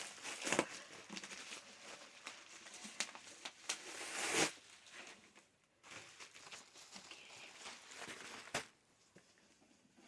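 Paper packing rustling and crinkling as a parcel is handled and unwrapped, louder about four seconds in, with a sharp click near the end.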